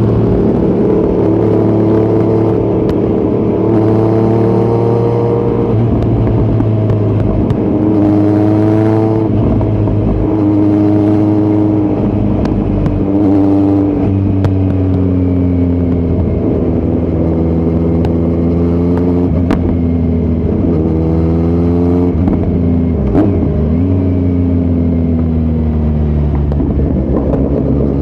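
2018 Kawasaki Z900's inline-four engine, breathing through a Yoshimura muffler and Delkevic headers with no dB killer, pulling hard on the move. The revs rise and fall several times as the throttle is worked.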